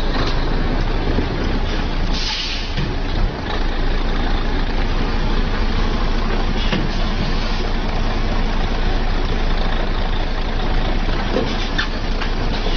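Heavy truck running with dense, steady engine and road noise, and a short hiss about two seconds in.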